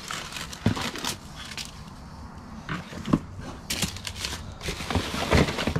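Hands rummaging through a cardboard box of odds and ends: irregular rustling and handling noise with scattered sharp clicks and knocks as items are picked up and moved.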